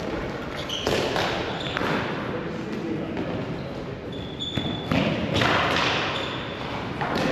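Ball hockey game in play in a large echoing hall: irregular knocks and thumps of sticks, ball and boards, with voices in the background.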